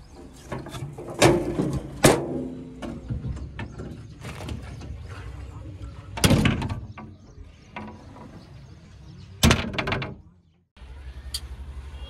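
Sharp metal clunks and rattles from a JCB backhoe loader's bodywork, four loud ones among smaller clicks, as the engine hood and cab are handled. After a short break near the end, a steady low engine hum starts.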